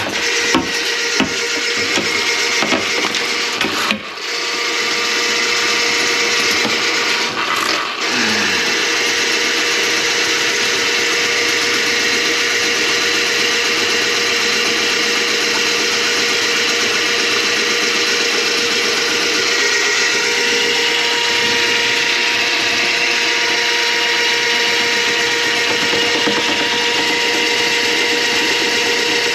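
Electric drain-cleaning machine running steadily, its motor humming while the spinning cable works through a grease clog in the kitchen drain line. A few knocks and clatters come in the first eight seconds.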